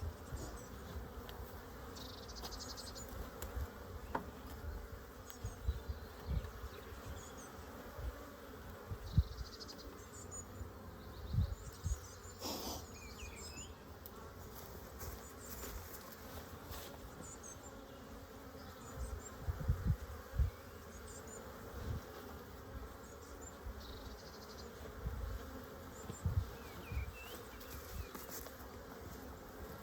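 Honeybees buzzing steadily around an open hive, with occasional low thumps.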